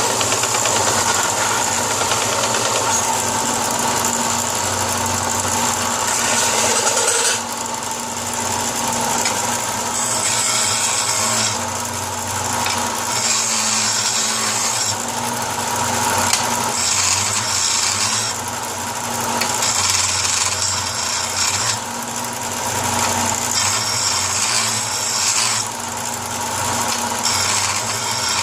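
Power tool motor running steadily while it sands or wire-brushes a steel motor-mount block. The scraping is continuous for the first several seconds, then comes and goes in short bursts of a second or two as the part is pressed on and lifted off.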